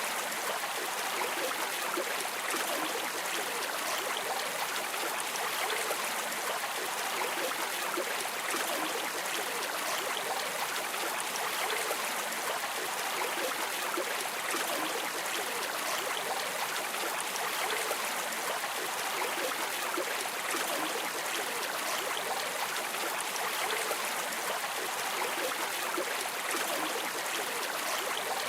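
River water streaming and babbling steadily, an even rush of flowing water with fine bubbling detail.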